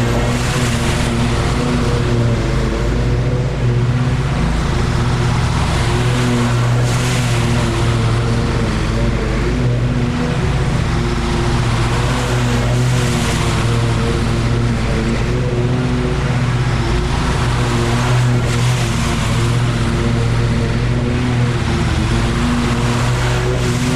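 Lawn mower engine running steadily at an even pitch.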